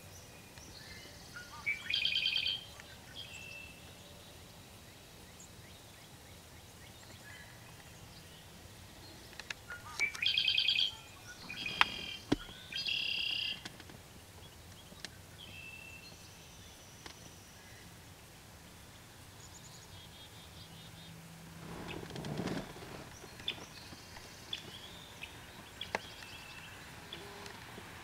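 Yellow-headed blackbird singing its harsh, buzzy song three times: once about two seconds in and twice near the middle. Faint chirps, a few sharp clicks and a brief rush of noise late on sit over a quiet marsh background.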